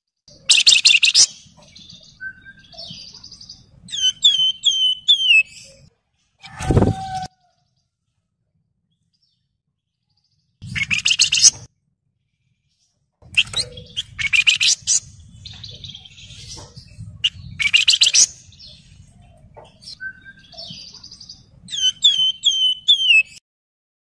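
Javan fulvetta (wergan Jawa, flamboyan) singing in separate bursts. Some bursts are runs of four or five quick, high, down-slurred whistled notes, and there are pauses between bursts. A short, loud, low-pitched sound comes a little under seven seconds in.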